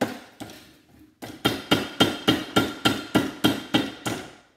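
Hammer blows on a transformer's laminated steel core held in a bench vise, knocking the core out. A few separate blows come first, then from about a second in a fast, even run of roughly five blows a second, each with a metallic ring.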